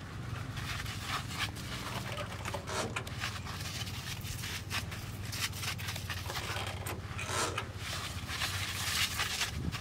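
Short hissing bursts of a sprayer misting liquid fertilizer onto melon fruit, coming every second or two over a steady low hum.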